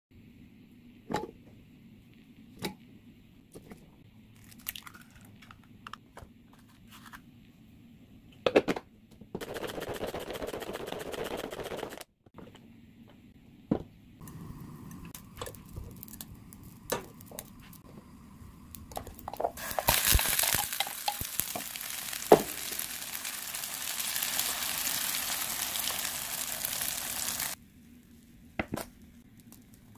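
Kitchen cooking sounds: scattered knocks and clicks of bowls and utensils, a couple of seconds of scraping noise about ten seconds in, then egg-and-broccoli batter sizzling in an oiled frying pan for about eight seconds, followed by a few light taps near the end.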